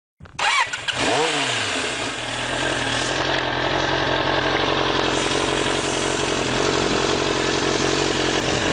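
Suzuki GSX-R sport bike's stock inline-four engine starting, its pitch rising and falling in a brief rev as it catches, then settling into a steady idle.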